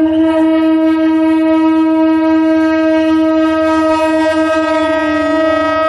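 Train horn sounding one long, steady blast at a single pitch that wavers slightly near the end.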